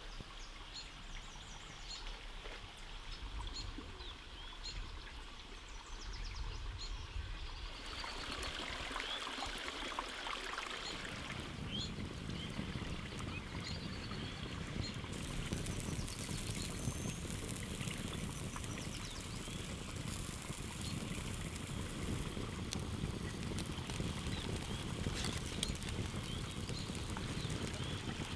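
Birds chirping over a quiet background, then running water like a stream or small waterfall comes in about eight seconds in and grows fuller, filling the rest with a steady rush.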